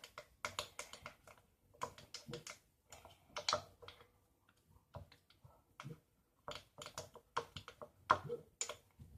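Spoon clicking and scraping against a bowl while stirring a hand soap and shampoo mixture: quick, irregular clicks in bunches.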